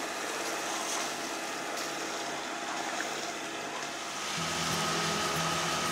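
A sailing yacht's auxiliary engine runs steadily under way, a constant drone with the rush of water along the hull. About four seconds in, a louder, deeper hum with a steady high tone comes in.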